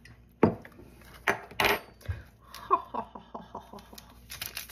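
A metal spoon clinking against a ceramic coffee mug: a few separate knocks, then a quick run of about five light, ringing clinks a second as the coffee is stirred. Near the end, a small plastic wrapper crinkling as it is torn open.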